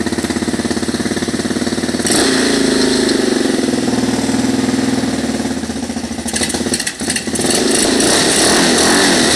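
Small engine running. From about two seconds in it is revved up and down, then it sags sharply about seven seconds in, nearly dying, before picking back up. It is a finicky engine that had just died after starting.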